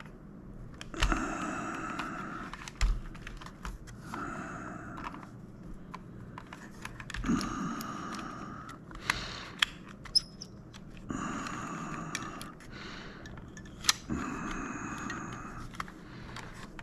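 Clicks and taps of plastic joystick parts being handled and worked on during disassembly. Five short steady whines, each about a second and a half long, come at intervals of about three to four seconds.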